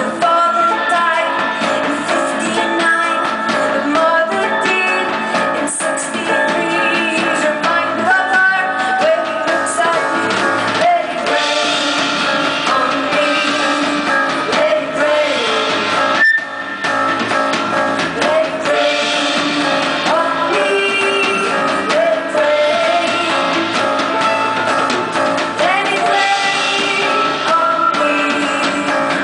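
Live band music: a woman sings lead over drum kit and guitar, with a momentary break in the sound just past halfway.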